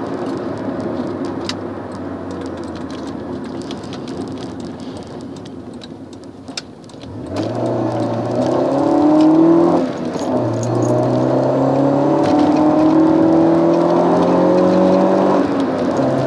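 1998 Alfa Romeo 916 GTV Twin Spark's 2.0-litre four-cylinder engine, heard from inside the cabin. It runs lightly off the throttle at first. About seven seconds in it pulls hard with the revs climbing, then there is a quick upshift about ten seconds in. The revs climb again, with another upshift near the end.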